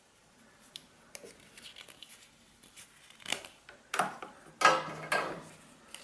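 Handling noise: scattered light clicks and clatter of tools being picked up and moved, getting louder and busier over the last three seconds.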